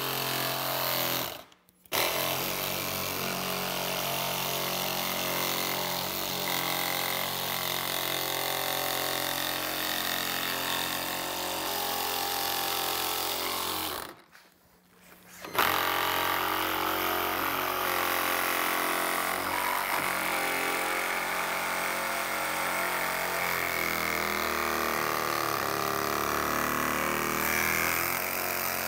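One-handed cordless reciprocating saw cutting through a plastic motorcycle saddlebag lid. The saw runs steadily, stops for a moment about a second and a half in, and stops again for over a second near the middle before starting up again.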